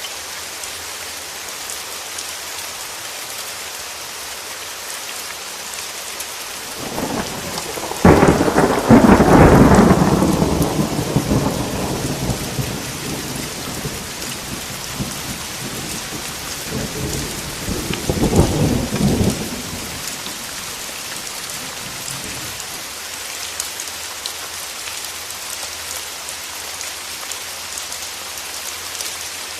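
Steady rain with a clap of thunder about eight seconds in that rolls away over several seconds, then a second, shorter rumble of thunder about ten seconds later.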